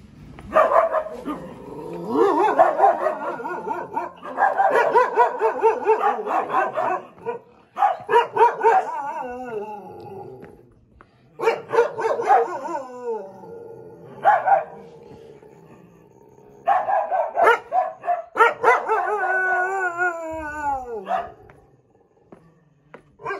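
Street dogs barking and howling in loud bouts separated by short lulls; near the end a long howl slides down in pitch.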